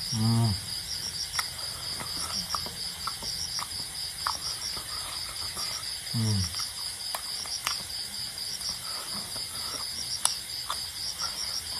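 Crickets chirping in a steady, fast, even pulse. There are two brief hummed vocal sounds from the eater, one at the start and one about six seconds in, and faint clicks of eating with the fingers.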